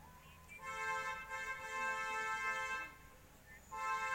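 A steady, horn-like chord of several held tones sounds twice: a long blast of about two seconds, then after a short gap a shorter one of about a second.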